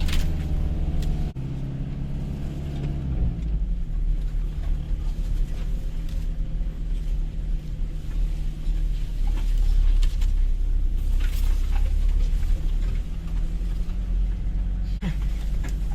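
Toyota HiLux ute driving on a rough off-road track, its engine running with a low, steady rumble. The engine note changes about three seconds in, leaving a deeper rumble, with a few faint knocks.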